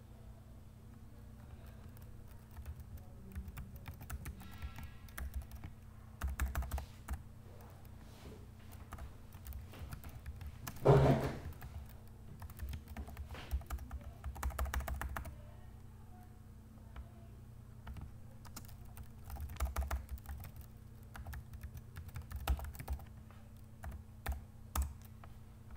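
Computer keyboard being typed on in scattered bursts of clicks, with one louder thump near the middle, over a steady low hum.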